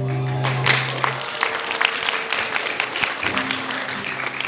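Angklung ensemble's shaken bamboo chord held and then stopping about a second in, followed by audience applause.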